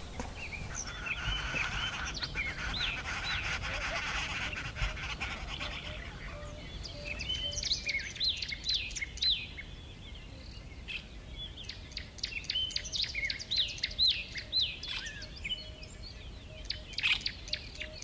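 Dawn chorus of wild birds: a dense mass of overlapping calls for the first few seconds, then a run of short, quickly repeated chirps from several birds.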